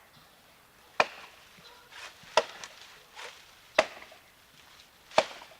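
Axe blows chopping into a fallen oak branch: four sharp strikes about a second and a half apart, with fainter knocks between them.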